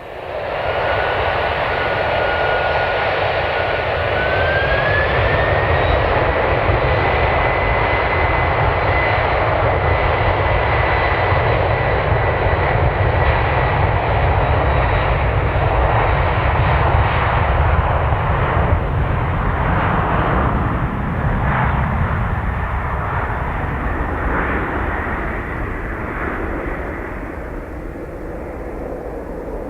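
Boeing 767-300ER's twin General Electric CF6-80C2 turbofans at high thrust on a takeoff run, a loud roar with deep rumble. The engines' whine rises in pitch about four seconds in, then holds steady, and the roar fades toward the end as the jet moves away.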